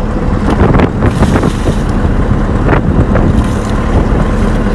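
Wind buffeting the microphone on an open boat deck, a loud steady low rumble, with a few short splashes of water from a barrel being scooped by hand.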